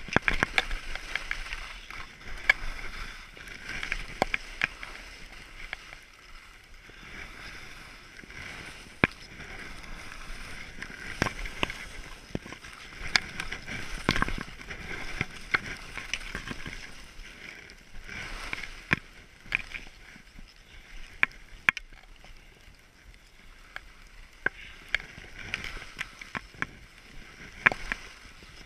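Skis hissing and scraping over snow, swelling and fading with each turn, with scattered sharp clicks and knocks.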